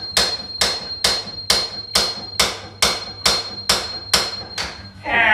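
Hammer blows on the steel front suspension of a Subaru Forester, evenly paced at about two strikes a second, with a thin metallic ring carrying between them. The blows stop shortly before the end.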